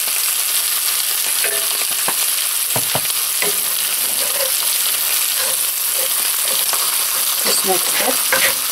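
Steady sizzling hiss of garlic fried rice frying in a cast iron skillet, with chicken breasts frying on a cast iron grill pan alongside, while a wooden spatula scrapes and turns the rice. A few knocks of the spatula come about two to three seconds in, and a quick run of them near the end.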